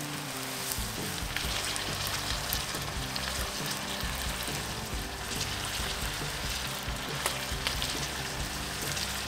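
Beef and onions sizzling in a cast-iron potjie pot over coals, a steady frying hiss with scattered sharp pops and crackles.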